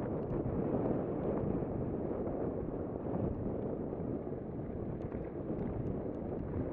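Wind buffeting the camera's microphone as a mountain bike descends fast on a dirt singletrack, mixed with the tyres rumbling over dirt and rock, and a few faint ticks about five seconds in.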